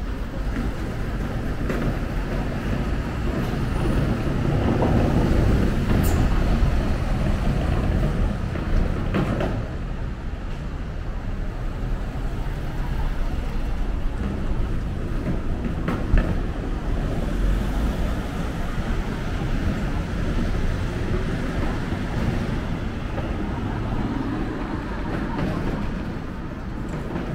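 City street traffic: engines and tyres of passing cars and a lorry over a steady hum, swelling for a few seconds about five seconds in.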